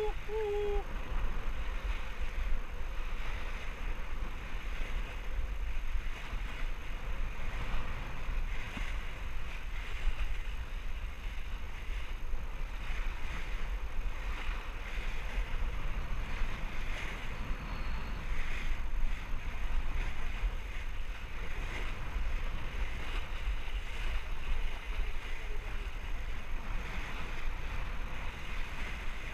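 Sailboat hull cutting through open-sea swell: the steady rush and splash of the bow wave, with wind buffeting the microphone in a low rumble.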